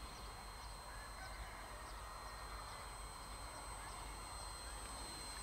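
Faint, steady high whine of a small RC plane's electric motor and propeller flying by, over a low hiss of open-air noise.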